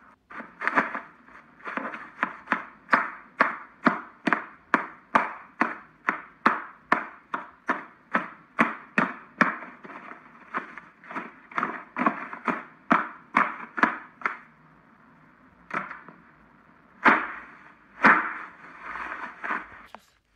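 Clear slime being pressed and squeezed by hand, giving a crackling crunch about twice a second. After a brief lull, a few louder crunches come near the end.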